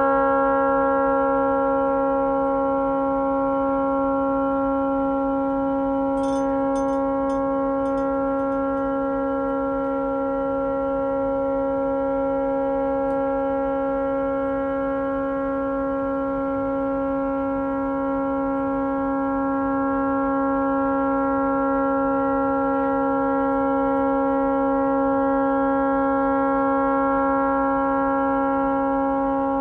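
A tugboat's stuck horn sounding continuously at one steady pitch: the horn has malfunctioned and will not shut off. A few faint clicks come through about six to eight seconds in.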